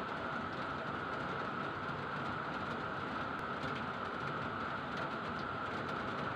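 Steady background noise, an even hiss with a faint steady whine running through it.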